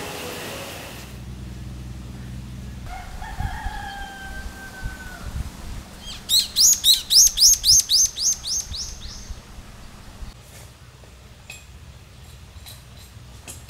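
Morning birdsong: a rooster crows once, then a small songbird sings a fast run of about a dozen high, downward-slurred notes, roughly four a second.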